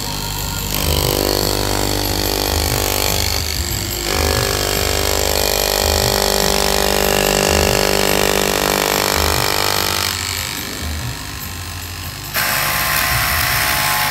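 Electric straight-knife cloth cutting machine running, its upright reciprocating blade cutting through stacked fabric: a steady machine whine that breaks off briefly about three and a half seconds in and stops about ten seconds in. A loud hiss starts about twelve seconds in.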